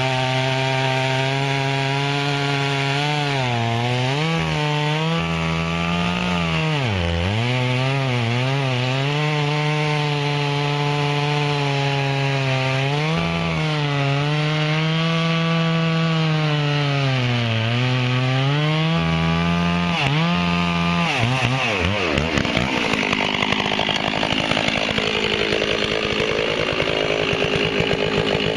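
Stihl two-stroke chainsaw at full throttle cutting wood, its pitch dipping again and again as the chain bogs down under load in the cut. About twenty-one seconds in it drops to a low, uneven idle, then revs back up near the end.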